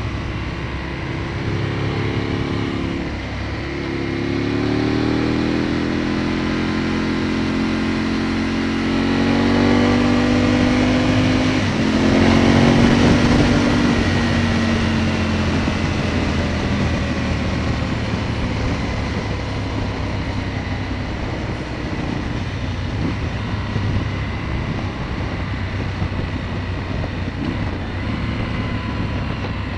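Aprilia Tuono motorcycle engine heard from on the bike, accelerating with rising pitch and a gear change about three seconds in, peaking about twelve seconds in, then settling into a steadier drone with wind noise.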